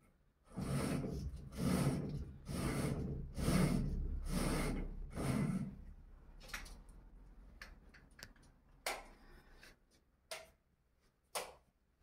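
A zebra-pattern roller blind lowered by its pull chain: five pulls about a second apart, each a short noisy rush, followed by a few light clicks.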